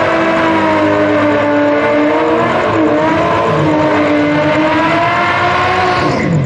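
Drag race car engine held at high revs with its pitch wavering slightly, then the revs fall away sharply near the end.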